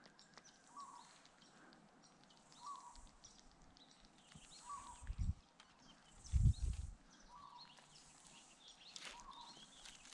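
Scratchy rustling and small clicks as a mesh yabby net and its catch are handled, with two dull bumps around the middle, the second the loudest. A bird gives a short call about every second and a half in the background.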